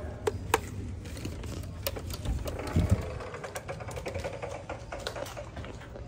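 Irregular sharp clicks and taps, closely spaced at first and then sparser, with a dull thump about three seconds in.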